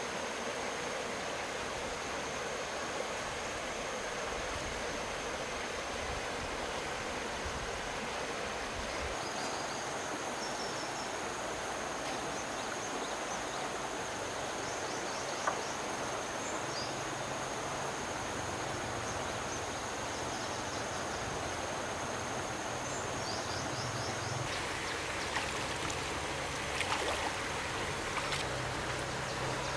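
Stream water flowing with a steady hiss, under an insect's high, steady trill that stops about three-quarters of the way through. Near the end come a few light knocks.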